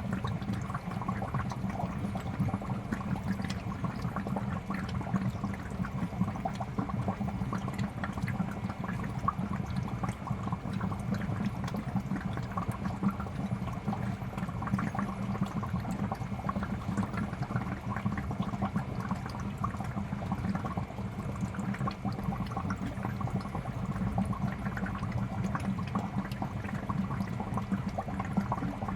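Aquarium air bubbler running steadily: a constant stream of small bubbles popping and gurgling at the water surface, with a low hum underneath.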